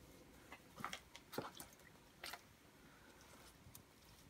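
Faint, soft scraping and squishing of wet moss and leaves being scraped off a sign's face by hand, a few short strokes with the loudest about a second and a half in.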